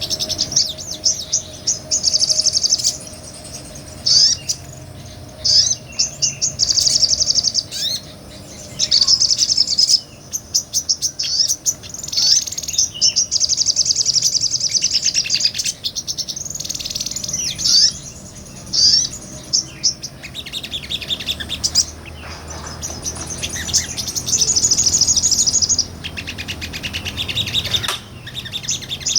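Sogon (sogok ontong), a small nectar-eating songbird, singing a busy full song: rapid, high-pitched chattering trills in phrase after phrase, with short pauses between them.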